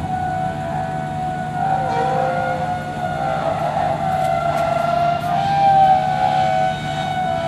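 Drilling rig's engines running steadily during rig-down as the mast is lowered, a constant low hum under a high whine that wavers up and down in pitch.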